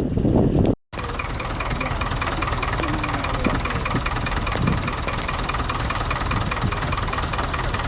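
Engine running steadily with a fast, even ticking of about five a second over a low rumble.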